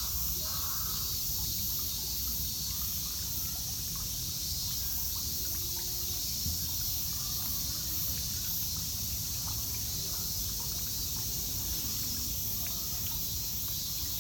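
Outdoor ambience with a steady, high-pitched insect drone of summer cicadas over a low rumble, with no clear bird calls.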